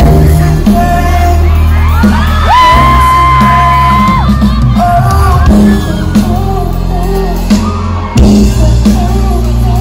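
Live pop band and singer heard loudly in an arena, with a steady beat and bass and a long held high note about two and a half seconds in; fans whoop and shout along.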